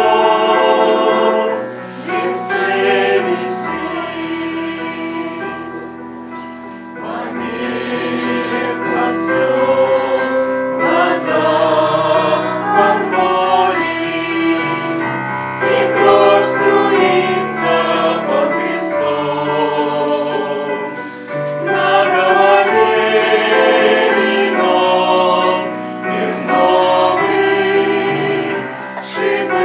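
Choir singing a Russian Christian song in several voice parts over sustained low accompaniment.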